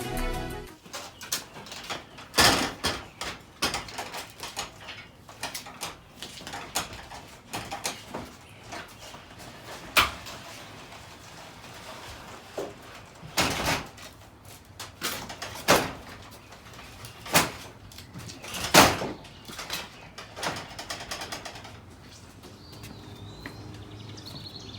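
Irregular knocks and clanks of hand work on garage door parts, a few sharp strikes louder than the rest in the middle. Background music cuts off in the first second.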